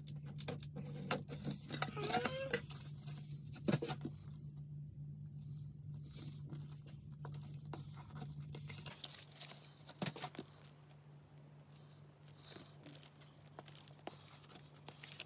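Cardboard packaging being torn open and handled, a run of rips, crinkles and small knocks. In the second half it gives way to softer paper rustling. A low steady hum runs under the first part and stops about nine seconds in.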